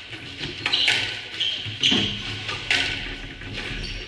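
Squash rally: the ball cracks off rackets and the court walls three times, about a second apart, each hit ringing in the hard-walled court, with short squeaks of court shoes on the wooden floor between hits.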